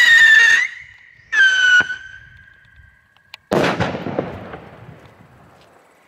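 Small three-stage whistle rocket (Triller-Rakete) finishing its whistling climb: two short shrill whistles, each dropping slightly in pitch, the second lower than the first. About three and a half seconds in, the star bouquet bursts with a sudden bang that fades out over about two seconds.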